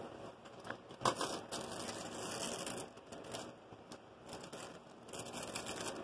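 Parchment paper rustling and crinkling as it is handled and rubbed over fabric and interfacing, in uneven bursts, with a sharp knock about a second in.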